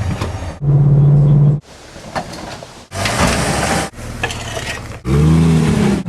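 Off-road vehicle engines running and revving in several short clips cut one after another. About a second in an engine holds a loud, steady note, and near the end an engine revs up and back down.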